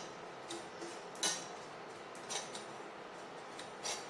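A stirring utensil scraping and clinking on a tawa griddle a few times, short and faint, as carom seeds and garlic pieces are dry-roasted.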